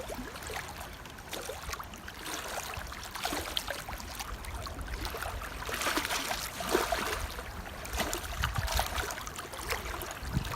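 Running water trickling and splashing steadily, with many small drips and splashes, like a small stream or water feature.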